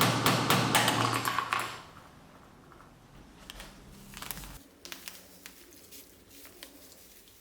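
Rapid, even knocking, about five strokes a second over a low hum, stopping under two seconds in; then faint, scattered small clicks and taps.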